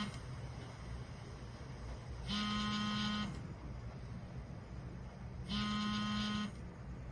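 Warning beeper of construction machinery: long, steady electronic beeps about a second each, repeating every three seconds or so.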